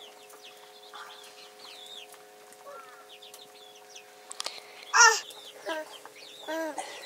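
Chickens clucking, with one loud call about five seconds in and a few shorter clucks after it. Faint high chirps run throughout.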